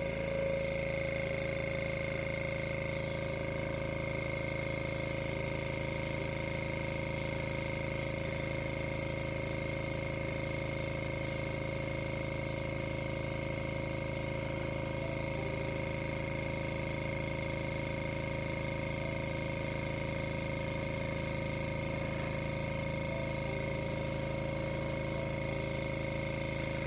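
Airbrush blowing a steady hiss of compressed air across wet acrylic paint, over the constant hum and whine of the air compressor feeding it.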